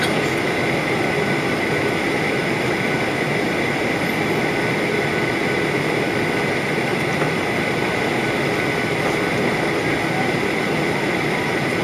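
Steady cabin noise of a Ryanair Boeing 737-800 in flight, heard from a window seat: the CFM56 turbofan engines and rushing airflow as an even rush with a steady high hum on top.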